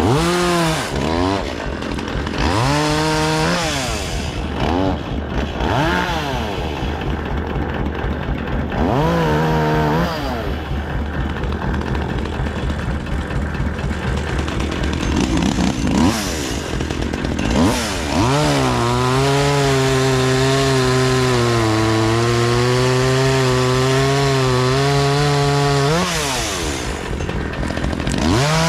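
Chainsaw idling and being revved in short bursts several times, then held at high revs for about eight seconds with the pitch sagging and holding lower, as when the chain bites into wood, before dropping back and revving again near the end.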